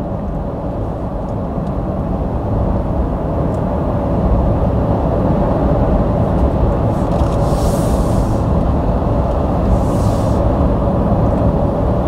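Steady wind and tyre noise inside the cabin of a Mercedes EQC 400 electric car at motorway speed, about 67 mph, with no engine sound under it. It grows slightly louder over the first few seconds, and two short swells of hiss come about eight and ten seconds in.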